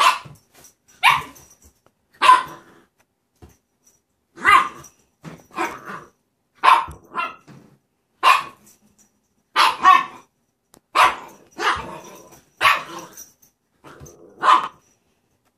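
Pomchi (Pomeranian–Chihuahua cross) puppy barking in play: short, sharp barks, about a dozen, roughly one a second, some coming in quick pairs.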